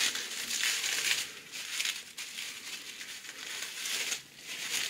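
Plastic cling wrap crinkling and rustling in irregular bursts as it is peeled off a ball of dough, loudest in the first second or so.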